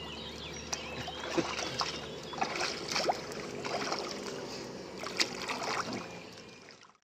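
Water splashing and lapping around a boat, with small scattered splashes and knocks, fading out near the end.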